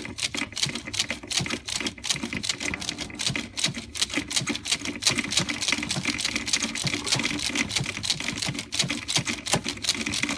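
3/8-inch ratchet clicking rapidly as it is swung back and forth, loosening a spark plug through extensions from the head of a Ford 5.4L two-valve modular V8. No screeching or cracking can be heard from the plug.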